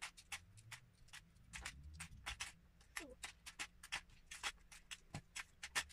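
Lego bricks being pulled apart by hand and dropped into a plastic tub: many quick, irregular small clicks and clatters.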